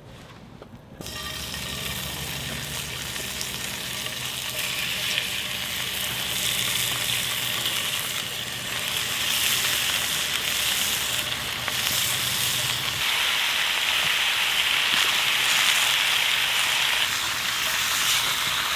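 Food frying and sizzling in a cast iron pan over a campfire, starting about a second in and growing louder. A low steady hum runs underneath for the first two-thirds.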